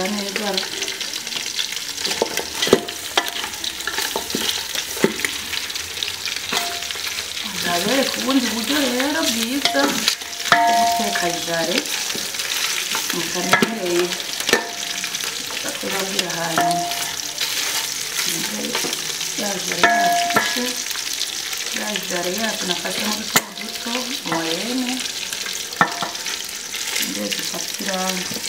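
Beef shank pieces frying in oil in an aluminium pot, sizzling steadily, while a wooden spatula stirs and scrapes them, with scattered clicks of the spatula on the pot. A wavering pitched sound comes and goes several times over the sizzle.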